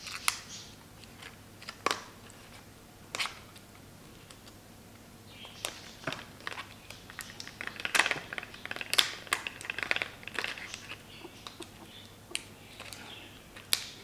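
Plastic retail packaging of a Crucial laptop RAM module being handled and opened: scattered sharp clicks and crinkling, a few single clicks at first, then a thick run of clicks and crackles about halfway through.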